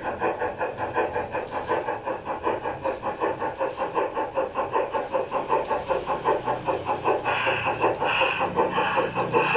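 Steam-locomotive chuffing from the sound decoder of an LGB 24267 garden-scale model of RüBB locomotive 99 4652, in a quick, even rhythm of about four to five chuffs a second, synchronised with the turning wheels as the train runs. A higher hissing tone joins the chuffs near the end.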